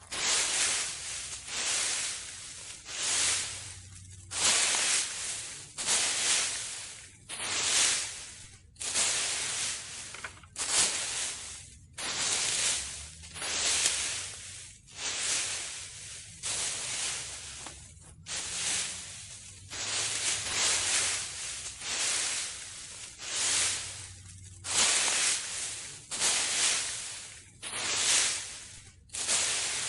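Leaf rake dragged through dry leaves in repeated swishing, rustling strokes, roughly one a second.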